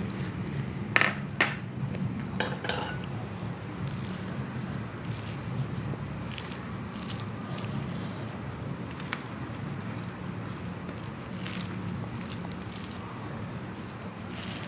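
Close-miked eating: a few sharp clinks against a plate in the first three seconds, then soft, wet chewing and mixing of food, over a steady low hum.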